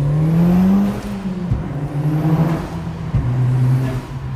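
Mitsubishi Lancer Evolution VIII's turbocharged four-cylinder engine, fitted with an aftermarket ETS intake, under hard acceleration: the revs climb for about a second, then drop with gear changes about one and a half and three seconds in.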